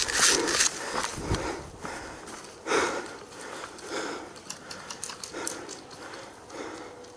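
A person breathing hard close to the microphone, with a soft noisy breath about every second and a half that slowly gets quieter.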